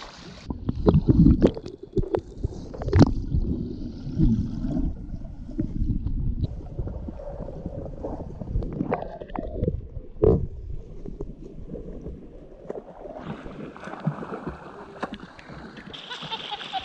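Sea water sloshing and gurgling around a camera at and just below the surface, muffled and dull, with irregular knocks and splashes. The sound becomes brighter and more hissy in the last few seconds, as the water laps at the surface.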